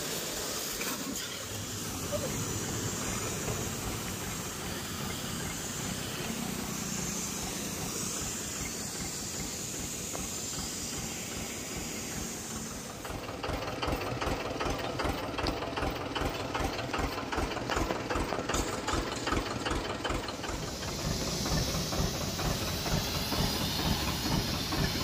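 High-pressure washer jet spraying hard against a tractor engine and a motorcycle, a steady hiss. About halfway in, a fast, even mechanical pulsing joins the spray.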